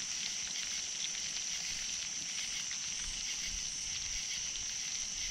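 Catfish frying in oil in a skillet over a campfire: a steady sizzle with faint crackles, over a steady high chorus of night insects.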